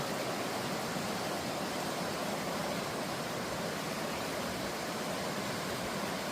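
Steady rush of running water, an even hiss with no change.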